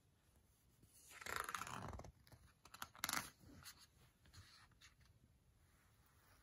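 A picture-book page being turned: a papery swish about a second in, a shorter rustle around three seconds in, then faint handling rustles.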